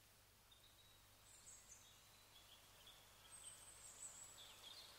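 Near silence: faint room tone with a few faint, brief high-pitched sounds.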